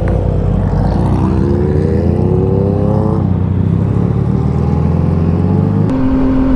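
Yamaha XSR900's inline-three engine pulling away from a standstill, the revs climbing and then dropping at an upshift about three seconds in, climbing again and dropping at a second upshift near the end.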